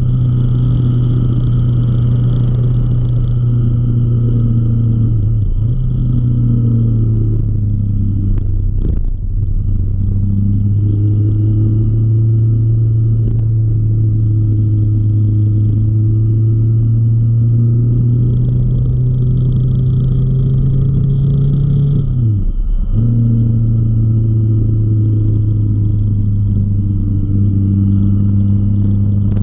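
Motorcycle engine pulling steadily at cruising revs, with a low wind rumble on the camera. The engine note dips briefly about five and nine seconds in, and near twenty-two seconds falls away and comes back at a slightly lower pitch.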